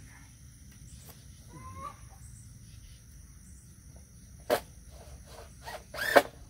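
Chickens clucking faintly over a steady high insect drone, broken by a few sharp knocks of lumber being handled, the loudest near the end.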